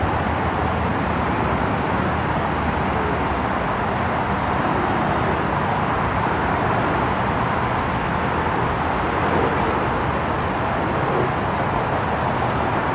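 Steady, even outdoor background roar with no distinct events, and a few faint high chirps now and then.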